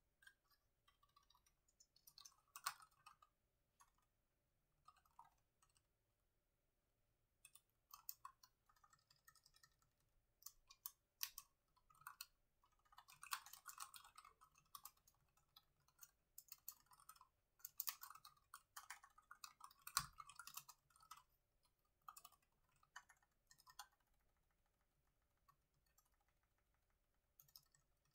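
Laptop keyboard typing: quiet, irregular bursts of key clicks with short pauses between them, and one harder key strike about two-thirds of the way through.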